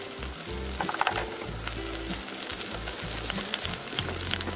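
Olive oil sizzling and crackling around garlic cloves and halved cherry tomatoes frying in a stainless steel pot, with a utensil stirring through the pot near the end.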